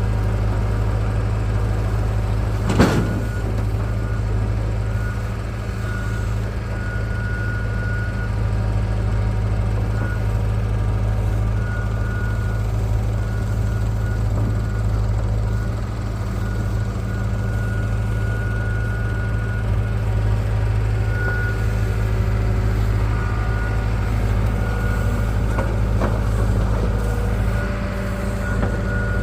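Heavy diesel engine running steadily at a constant speed, with a faint high whine that comes and goes and a single sharp knock about three seconds in.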